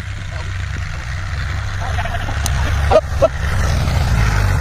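Tractor's diesel engine running under load as it pulls a plough through the soil, a steady low rumble growing louder as it comes close. Two short sharp sounds stand out about three seconds in.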